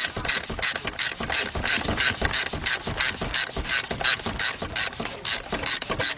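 3/8-drive ratchet clicking rapidly and steadily as a bolt is turned with a 12 mm socket.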